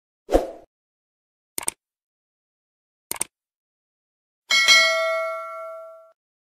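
Subscribe-button animation sound effects: a short pop, two quick mouse clicks about a second and a half apart, then a notification bell ding that rings out for about a second and a half.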